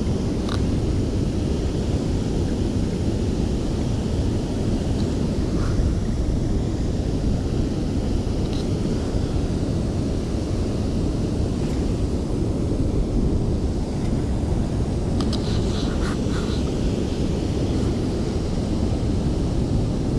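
Steady rushing roar of water pouring over the dam spillway, mixed with wind on the microphone. A few faint clicks and taps come from the boat, a small cluster of them about three quarters of the way through.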